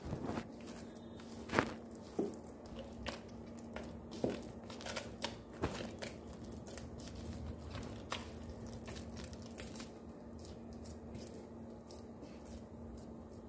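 Hand kneading soft, sticky refined-flour dough in a ceramic bowl: irregular squelches, tearing sounds and soft knocks against the bowl, thinning out after about eight seconds.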